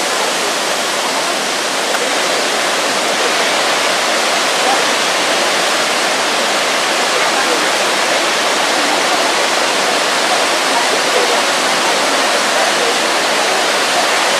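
Niagara Falls: the steady, loud rush of a huge volume of falling water, an even dense hiss with no letup.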